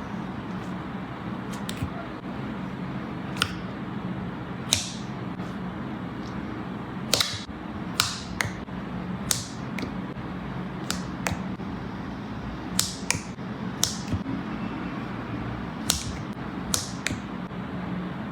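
Slime being pressed and worked by hand, giving irregular sharp sticky pops and clicks, roughly one a second, over a steady low background hum.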